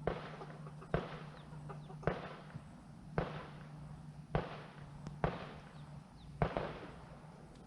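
Sharp clicks or snaps about once a second, seven in all, as old wire is twisted and pulled tight through a hole by hand.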